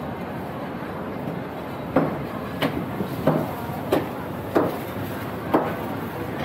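Six sharp knocks at a steady pace, about two-thirds of a second apart, starting about two seconds in over a steady hum of street noise.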